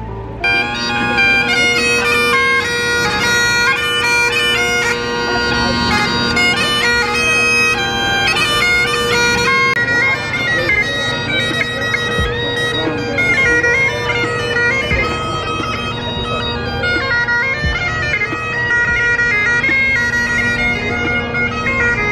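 Scottish bagpipe playing a melody over its steady, unbroken drones.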